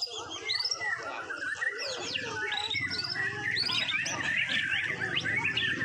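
Several caged white-rumped shamas singing at once in a song contest: loud, overlapping whistled phrases with quick upward and downward sweeps, one bird over another with no break.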